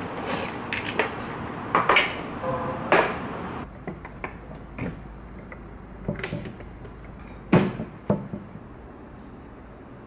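Cardboard box being handled with scrapes and taps, then separate plastic clicks and knocks as the white Illy capsule coffee machine is set up and its water tank fitted, the loudest knock a little over seven and a half seconds in.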